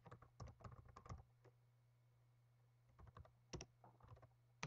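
Faint computer-keyboard typing: quick keystrokes in two short runs with a pause of about a second and a half between them, and one sharper key click about three and a half seconds in.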